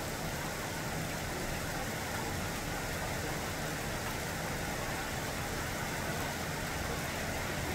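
Steady rain falling on tree leaves, with a low steady hum underneath.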